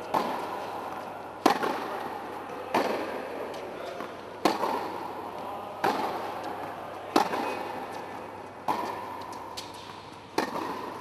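Tennis balls struck back and forth in a baseline rally on an indoor hard court: sharp racket pops about every second and a half, each ringing on in the hall's echo.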